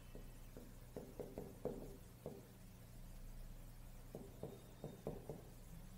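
Chalk tapping and scraping on a blackboard as a word is written: a series of faint short taps in two clusters, the first in the opening two seconds and the second about four to five seconds in.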